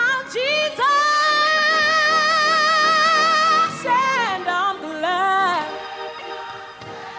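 A woman singing gospel over organ: a long high note held with wide vibrato, then a run of shorter notes falling in pitch. Her voice stops past the middle and the organ carries on more softly.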